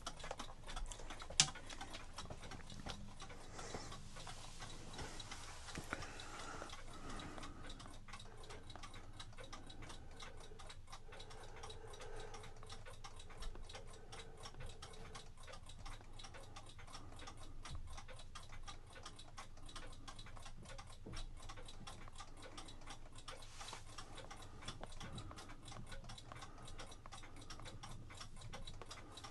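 Mechanical clock ticking steadily and faintly, with one sharp click about a second and a half in.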